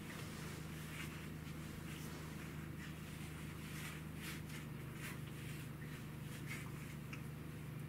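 Soft, irregular rustling and light scratching of a cat's paws working through a dog's thick fur and brushing the foam floor mat, over a steady low hum.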